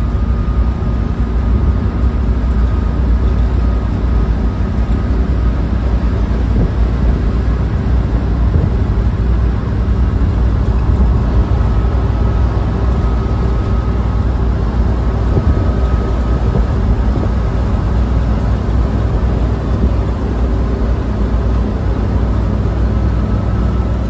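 1964 Volkswagen bus on the road, its air-cooled flat-four engine and road noise making a steady low rumble with a faint steady whine above it.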